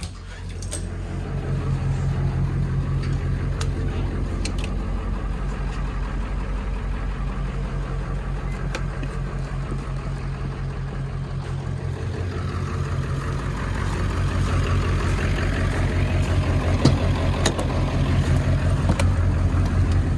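A vehicle engine running steadily, picking up speed and getting louder about two-thirds of the way through.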